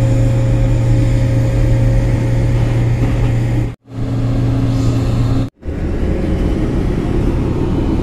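Ship's deck crane machinery running with a steady, loud mechanical hum as it lifts a pallet of stores aboard. The sound cuts out briefly twice, and after the second break it becomes a rougher low rumble.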